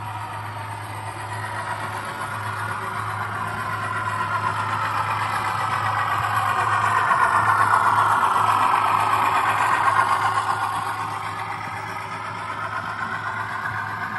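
Model diesel locomotive and passenger cars running past on the layout track. The running sound builds as the locomotive comes close, loudest about eight to ten seconds in, then eases off as the carriages follow, over a steady low hum.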